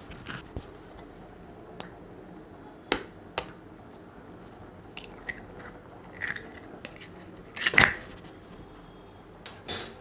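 An egg cracked on a bowl and its shell broken open by hand: a few scattered sharp taps and clicks, the loudest a short cluster of knocks near the end.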